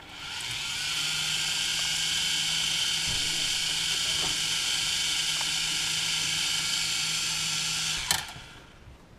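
Four brushed motors and propellers of an FQ777 FQ40 quadcopter spinning up and running at a steady idle whine, armed from the transmitter sticks. They stop abruptly with a click about eight seconds in.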